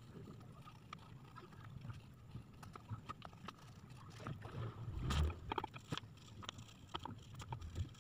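Colouring on paper at a tabletop: irregular light taps and scratches of the colouring tool against the sheet and table, with a louder thump about five seconds in.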